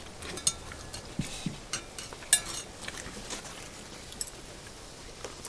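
Metal chopsticks clicking and scraping against a small skillet as a fried egg is broken up: a scatter of light clicks and clinks, the loudest about two seconds in.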